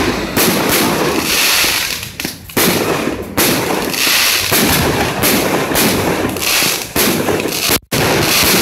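Fireworks display: aerial shells going off in a rapid, continuous barrage of bangs and crackling. The sound cuts out for an instant near the end.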